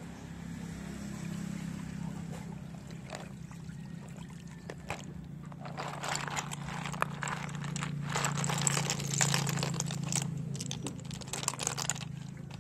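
Shells of small freshwater snails clicking and clattering against each other in a plastic basin of water as they are stirred by hand. The clatter is densest from about six seconds in, over a steady low hum.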